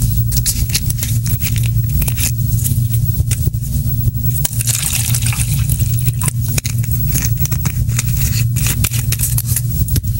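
Loud, steady low electrical hum with irregular crackles and clicks, like a buzzing audio line.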